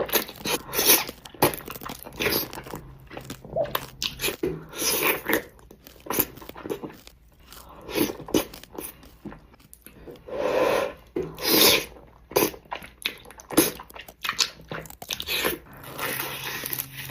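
A person eating close to the microphone: repeated bites and chewing in irregular short bursts, some sharp and some longer.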